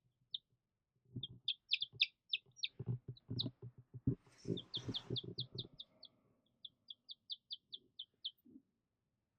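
Olive egger chicks peeping: short high peeps in quick runs, with soft knocks and a brief rustle during the first half.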